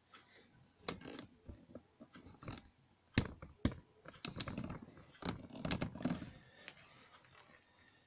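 A plastic heat gun being handled: scattered light clicks and knocks from its housing and soft rubbing of fingers on the plastic, with two sharper clicks a little after three seconds in.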